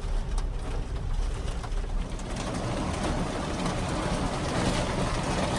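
Heavy rain mixed with hail pouring down, with a low wind rumble, the downpour growing louder about two seconds in.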